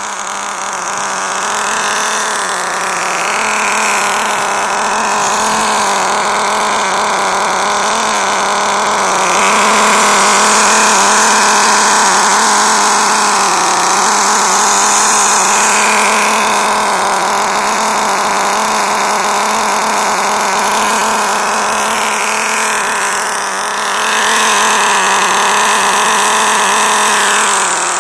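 The small nitro glow engine of an LRP Shark 1/18 RC car running steadily at idle during break-in on its first tank of fuel. It gets louder for a stretch about a third of the way in and again near the end.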